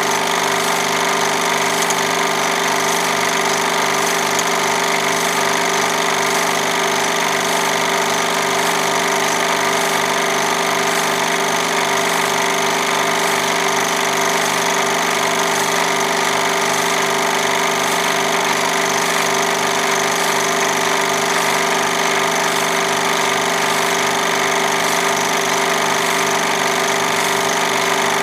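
Film projector running: a steady mechanical whir with a regular low pulsing clatter, unchanged throughout.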